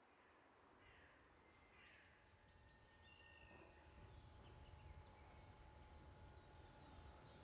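Faint outdoor ambience that slowly grows louder, with a few faint high bird chirps and calls in the first half.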